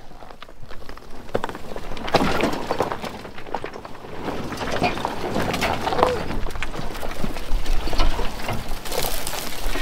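Crunching of rocks and crackling of dry brush as a Ford F-150 pickup rolls slowly down a steep rocky slope on its brakes, with scattered clicks and scrapes of brush against the body.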